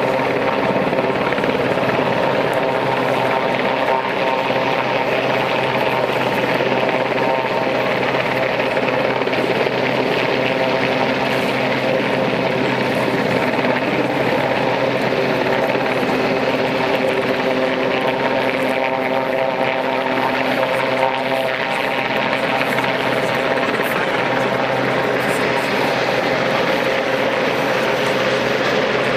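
Royal Navy Sea King search and rescue helicopter hovering low over the water. Its rotor and twin turbines run with a loud, steady sound and several held tones that do not change in pitch.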